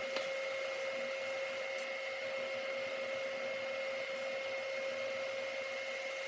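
Portable induction cooktop running under a stainless steel frying pan: a steady electrical whine in two constant pitches over an even hiss.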